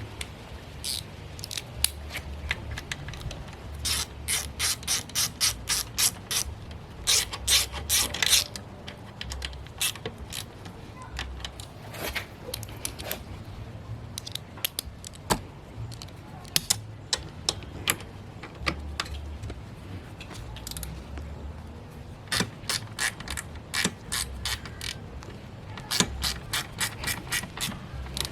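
Hand ratchet wrench clicking in quick runs of several clicks a second as bolts are turned, with pauses between runs.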